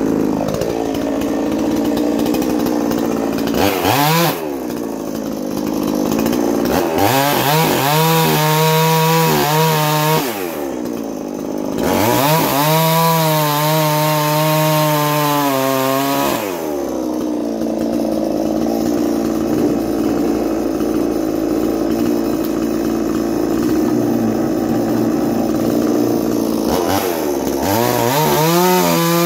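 Ported Chinese 45cc two-stroke chainsaw, freshly started from cold and warming up, running at idle and revved up several times: a short blip, two long revs held at high speed for a few seconds each, then another rev near the end.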